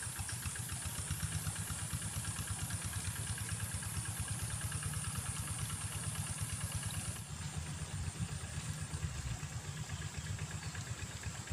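A small engine running steadily with an even, fast pulsing. A high steady hiss stops suddenly about seven seconds in.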